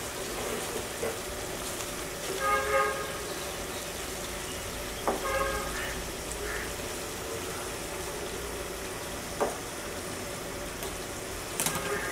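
Wooden spatula stirring chicken simmering in a milk-and-yogurt gravy in a nonstick wok: a steady wet simmer with a few knocks of the spatula against the pan. Two brief steady-pitched tones, like a distant horn, sound about three seconds apart in the first half.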